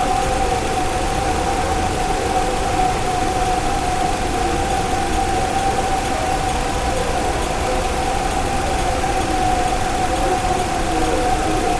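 A long howl-like tone held flat on one pitch near 800 Hz, with fainter, wavering tones below it and a steady hiss of background noise. The recordist takes it for a female Sasquatch howling; its source is unconfirmed.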